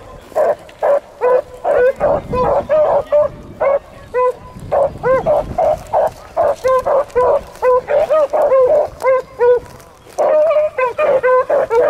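A brace of male beagles giving voice while trailing a rabbit: rapid, overlapping barks, about three a second, with short breaks about four seconds in and again near the end.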